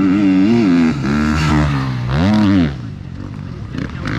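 Enduro motorcycle engine revving, its pitch climbing and falling again and again as the throttle is blipped. It is loud up to a last rev about two and a half seconds in, then drops to a quieter, lower note.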